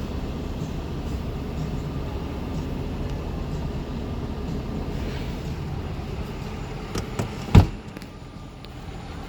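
Steady low rumble of a running truck, a 2019 Ram wrecker. About seven seconds in come two small clicks, then a single sharp, loud click, after which the rumble is a little quieter.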